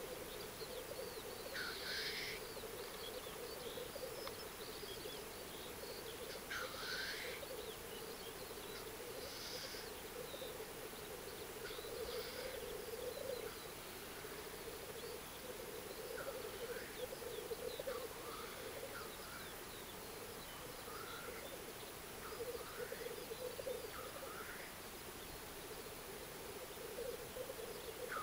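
Black grouse males at a lek: a continuous low bubbling coo, with several hissing sneeze-like calls rising above it, most of them in the first half.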